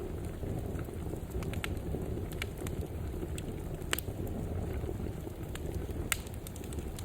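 Wood fire burning in a fireplace: a steady low rumble of flames with scattered sharp crackles and pops, two louder pops about four and six seconds in.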